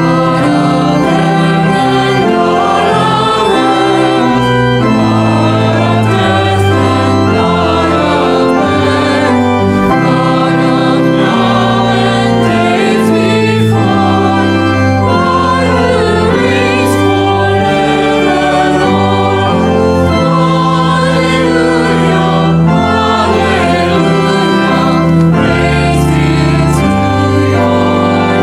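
Organ accompanying voices singing a hymn, with held chords and bass notes changing every second or two.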